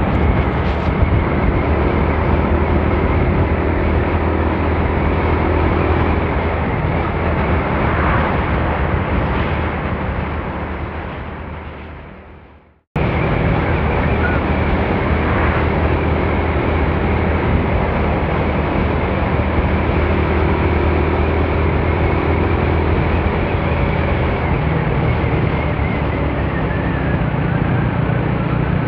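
Motorcycle ride recorded on a phone: a steady rush of wind over the microphone with the motorcycle engine's hum beneath it. The sound fades away about twelve seconds in and cuts straight back in.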